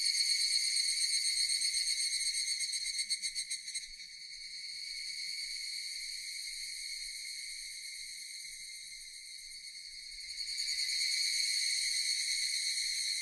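Japanese cicadas singing in a continuous high-pitched chorus, with a fast pulsing for the first few seconds, then steadier and a little softer, swelling louder again about ten seconds in.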